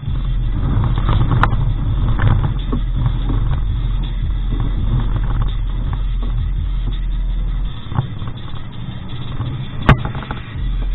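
2001 Ford Expedition's V8 engine running steadily as the 4x4 drives over rough grass, with the truck's rumble and a few sharp knocks, the loudest near the end as the vehicle jolts.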